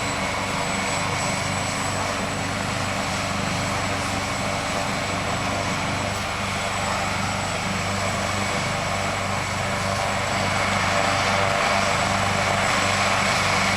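Medevac helicopter running on the ground, getting ready to take off: a steady rotor and turbine hum with a thin high whine, growing a little louder about ten seconds in.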